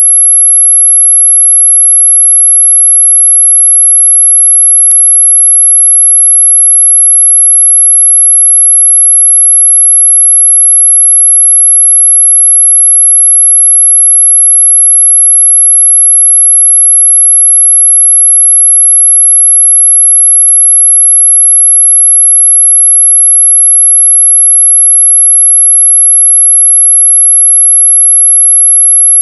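A loud, steady, very high-pitched electronic sine tone, sold as an ultrasonic mosquito repellent, though its pitch lies within hearing. Two faint ticks come through, one about five seconds in and one about two-thirds of the way through.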